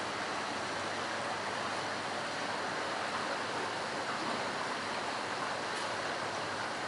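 Decorative indoor water walls running: sheets of water falling down glass panels with a steady, even rushing splash.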